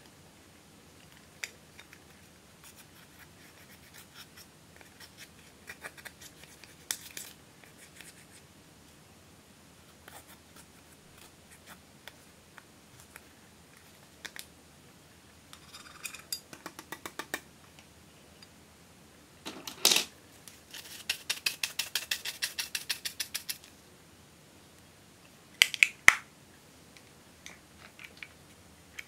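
Pressed eyeshadow being scraped and crumbled out of plastic compacts with a small plastic tool: dry scratching and clicking strokes, with a fast run of quick strokes about two-thirds through and two sharp clicks near the end.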